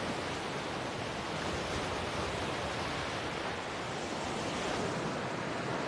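Small sea waves washing onto a sandy beach: a steady, even rush of surf.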